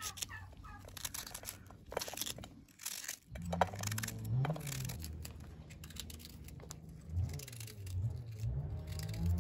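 Knife slicing crisp pieces off a head of raw cabbage held in the hand, a series of short crunchy cuts. From about three seconds in, a louder low rumble with a wavering pitch runs under the cutting.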